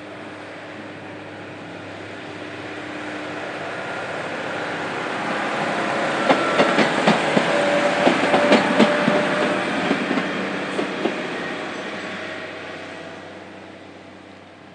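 A train passing: a rumble that builds, peaks with wheels clicking sharply over rail joints, then fades away.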